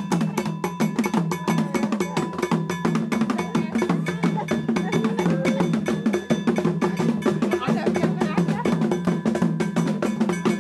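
Percussion music: a fast, even run of bell-like strikes over drums, keeping up without a break.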